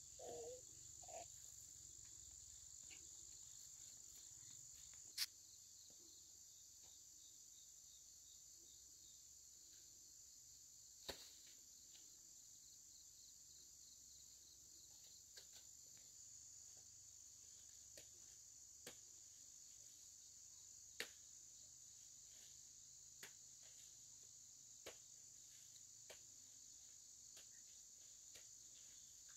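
Faint, steady high-pitched chirring of crickets, with a few sharp clicks scattered through it.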